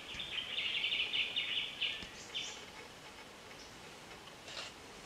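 A bird's rapid trill of quickly repeated high notes lasting about two and a half seconds, then a single short call about four and a half seconds in.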